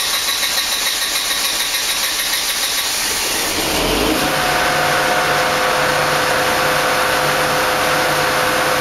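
Generac standby generator engine starting up and running; about four seconds in it settles into a steady hum at running speed, with a low pulsing drone under a steady whine.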